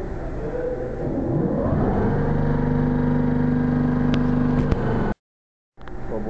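Roller brake tester's electric roller motors spinning up and running steadily, turning a car's rear wheel during a rear-axle brake test: a hum that rises in pitch, then holds as a steady whine. It cuts off abruptly about five seconds in.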